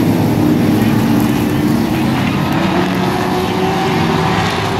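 Racing trucks' engines running as they circle a short oval track: a loud, steady drone of several engines at once.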